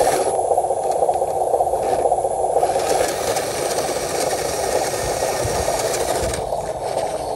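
Electric drive motor and gearbox of a homemade RC dump truck running steadily as it crawls over loose dirt, giving a continuous gritty rattle.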